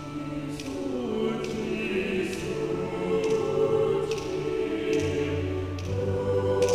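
Mixed choir singing a hymn in sustained chords, with crisp sibilant consonants cutting through at intervals. Low bass voices come in about five seconds in, and the singing grows louder.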